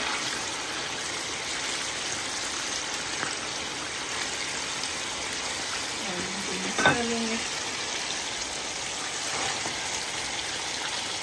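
Chicken pieces frying in hot oil in a pan, a steady sizzle, stirred with a wooden spatula. A single knock, the spatula striking the pan, comes a little past halfway.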